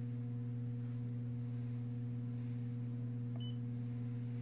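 Steady low electrical hum, with one short high beep about three and a half seconds in as the Cap Inspector 2100's touch panel takes a button press.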